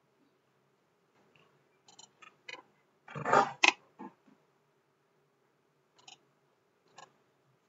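Computer mouse clicking: several short, sharp clicks spaced out at irregular intervals. About three seconds in comes a louder rustling noise lasting about half a second, ending in a click.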